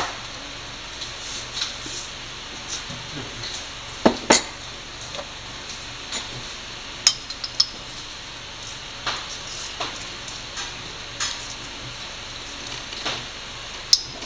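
Spoon and steel bowl clinking as seasoning is added to salmon pieces: scattered sharp clinks and knocks at irregular intervals, the loudest about four seconds in and again about seven seconds in, over a faint steady hiss.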